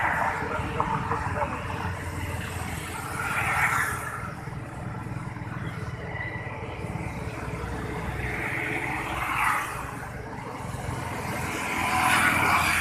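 Road traffic: a steady low rumble with a few vehicles swelling past.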